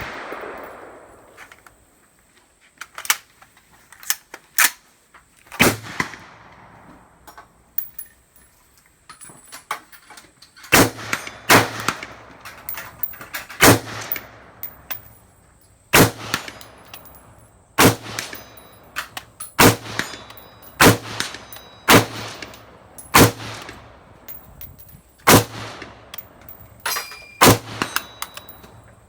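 AR-15 (M4-clone) rifle firing single shots, over a dozen in all. A few come spaced out near the start, then a steady string of roughly one every one to two seconds from about ten seconds in.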